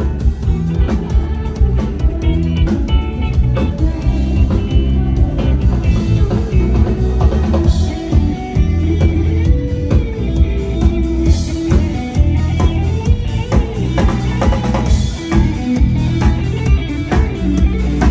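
Loud music with a steady drum-kit beat and heavy bass, played during a sound-system sound check.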